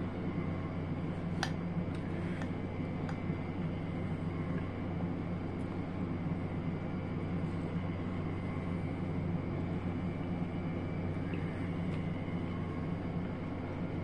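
Steady mechanical hum with a faint high whine running under a man eating watermelon with a fork; a few short clicks and smacks of chewing and fork come about one and a half to three seconds in.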